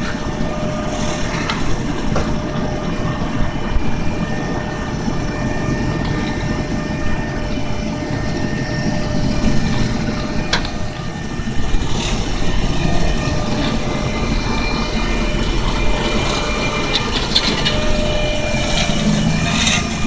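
Volvo P6820C asphalt paver and a dump truck running steadily while the raised truck bed tips asphalt into the paver's hopper, with a faint steady whine and a few sharp knocks.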